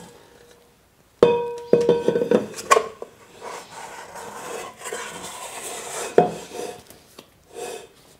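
A stainless steel mixing bowl knocking and clanking with a ringing tone as sticky yeast dough is turned out of it, then scraping as the dough is worked loose from the bowl, with another knock near the end.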